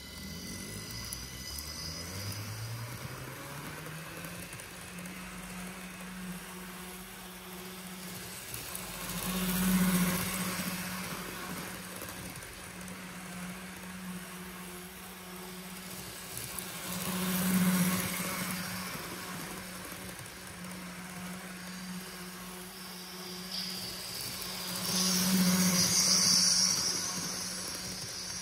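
ESU LokSound 5 sound decoder in a Kato N-gauge TGV Sud-Est model playing electric traction motor hum through its small speaker, rising in pitch over the first few seconds as the train pulls away, then holding steady. The sound swells three times, about every eight seconds, as the model passes close by, with the whirr of its own motor and wheels on the track.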